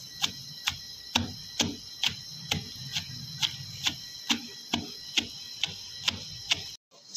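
Pestle pounding chunks of raw mango, onion and green chilli in a stone mortar for chutney: steady, evenly spaced knocks, about two to three a second, stopping abruptly just before the end.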